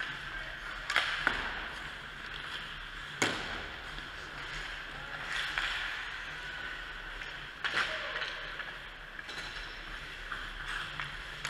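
Ice hockey play in an indoor rink: skates scraping across the ice under a steady arena wash, with a few sharp knocks, the clearest about one, three and nearly eight seconds in.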